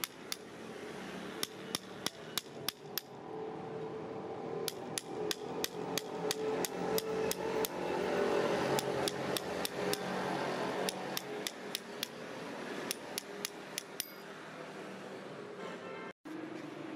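Hammer tapping on the back of a blade held against a bull's hoof, cutting away the overgrown horn. Quick, sharp taps come in runs of about three or four a second and stop about 14 seconds in.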